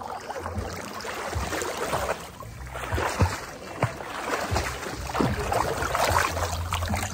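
Water splashing and sloshing right at the microphone as a swimmer strokes and ducks his head through shallow water, in irregular bursts, with a low rumble from the water moving against the phone.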